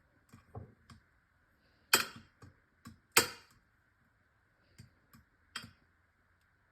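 Irregular light clicks and knocks of kitchen handling as cooked ziti noodles are laid into a baking pan, with two louder clatters about two and three seconds in, over a faint steady hum.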